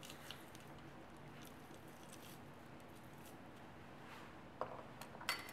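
Faint squeezing of a handheld garlic press crushing garlic cloves: quiet squishing with a few light metallic clicks near the end.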